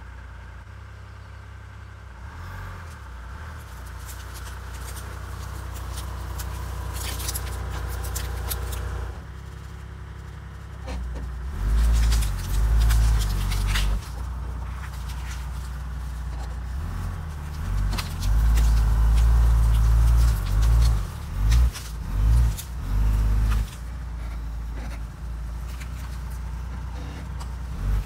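Toyota Land Cruiser 80's engine running under load as it drags strapped logs through the undergrowth. It builds steadily and then revs in several short surges, with crackling and scraping from the brush and logs.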